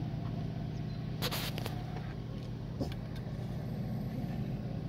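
Screwdriver and metal lock hardware on a camper door giving a few sharp clicks and scrapes, a quick cluster about a second in and one more near three seconds, over a steady low engine-like hum.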